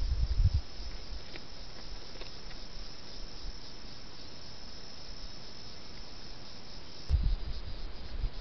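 Steady high-pitched insect chorus droning on without a break. A louder low rumble comes in the first half second and again near the end.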